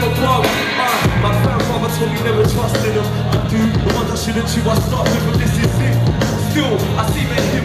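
Live hip hop band playing, a steady deep bass line and drum beat, with a rapper's voice over it through the concert PA.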